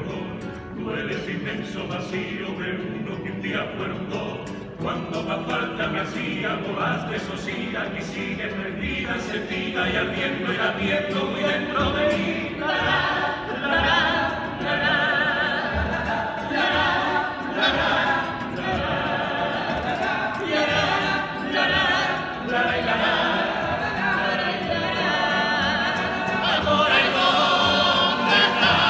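Male vocal group singing together in full chorus, with guitar accompaniment; the singing swells and is loudest near the end.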